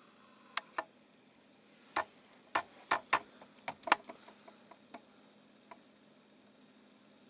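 A string of about a dozen sharp clicks and taps at uneven spacing, bunched and loudest between about two and four seconds in, over a faint hiss.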